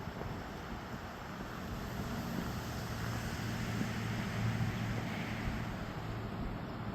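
Steady outdoor background noise with a low engine hum that grows louder through the middle and then eases: distant motor traffic.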